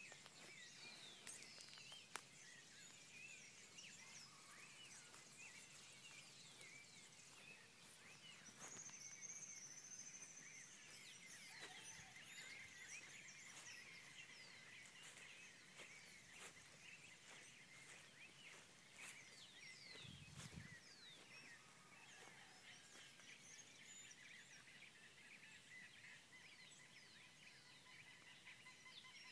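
Faint dawn chorus of many birds, with short chirps and whistles overlapping one another. A steady high note joins in during the second half.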